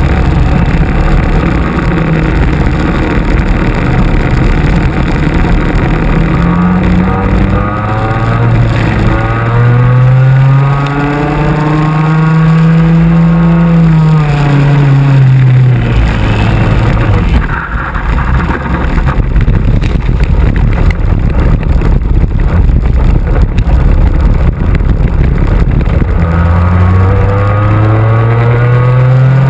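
Racing kart's two-stroke engine heard onboard at full race pace. Its pitch climbs for several seconds, drops about halfway through as it slows, then climbs again near the end, with other karts' engines running close by.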